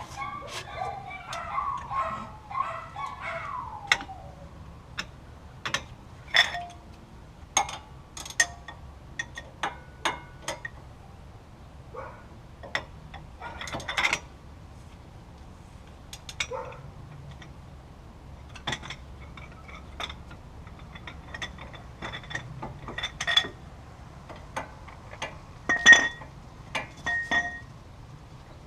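Hand tools and metal parts clinking and tapping at irregular intervals during work on a wheel hub assembly, with a few sharp louder clinks; in the first few seconds there is also a wavering squeak-like sound.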